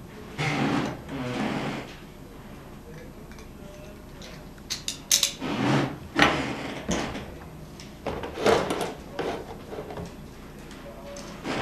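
Handling noises: clicks, scrapes and rattles in a few short bursts a few seconds apart.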